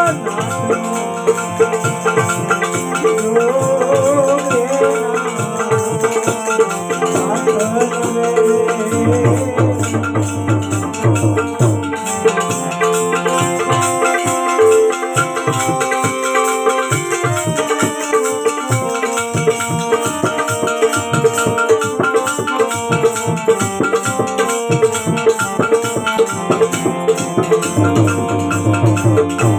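Instrumental interlude of devotional bhajan music: sustained held chords over a stepping bass line, with steady hand percussion and jingling rattles.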